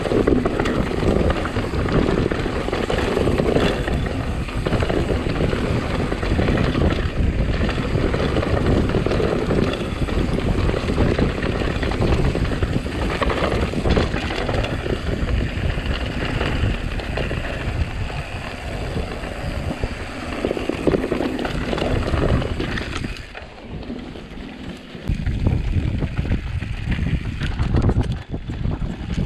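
Mountain bike riding over rough ground: a steady rumble and rattle of tyres and bike, mixed with wind buffeting the microphone. It drops away for a couple of seconds near the end, then picks up again.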